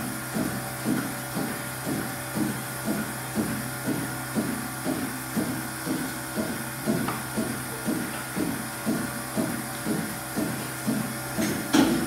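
Dairy milking machine pulsators pulsing in a steady rhythm, about two pulses a second, over a steady low hum. There is a louder knock near the end.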